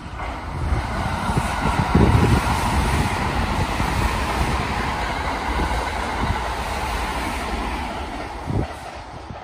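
JR West Thunderbird limited express electric train running through the station. Its running noise swells within the first two seconds, holds steady, and fades near the end, with a brief dull thump just before it fades.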